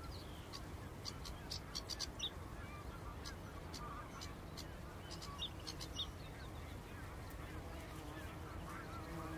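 Wadden Sea mudflat soundscape: a flock of waterbirds, geese among them, calling continuously, with sharp high calls coming in two clusters, about two seconds in and again around five to six seconds, over a steady low rumble.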